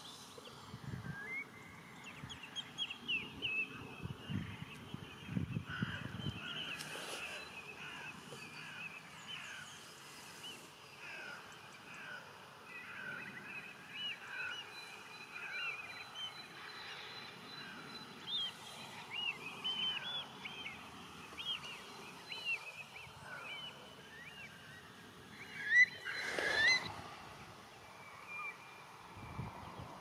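A flock of Eurasian teal calling: many short, high whistled calls overlapping, with one louder sudden sound about 26 seconds in.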